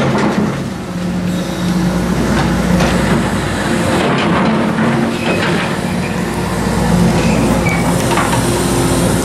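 CASE crawler excavator's diesel engine running under load, with knocks and clatter of metal on broken masonry and a couple of short high squeals near the end.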